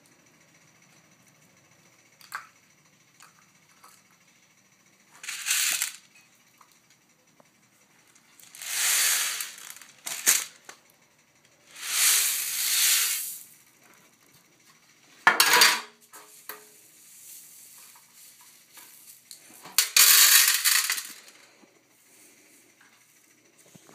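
Dried popcorn kernels rattling and spilling out of a metal baking tray onto a hard floor, in about six noisy bursts of a second or two each, with small clicks of single kernels between them.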